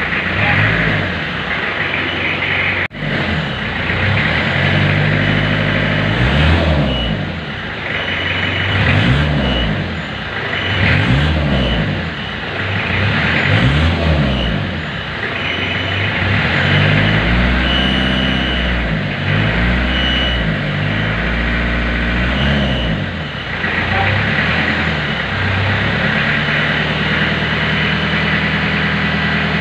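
1991 Isuzu Panther diesel engine revved in repeated throttle blips, its pitch rising and falling about every two seconds, then settling to a steady idle for the last few seconds.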